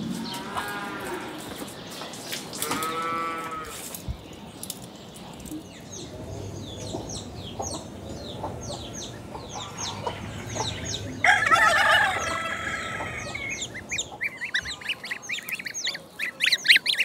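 Chickens: a rooster crowing loudly about eleven seconds in, with two shorter wavering calls near the start and clucking. A run of quick, high chirps sounds throughout and is thickest near the end.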